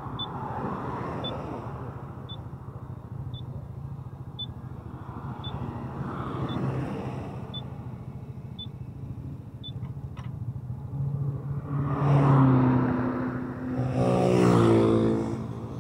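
Motorcycle engine idling steadily, with a short high beep repeating about once a second for the first ten seconds. Near the end, vehicles pass loudly on the road twice, and one engine rises in pitch as it speeds up.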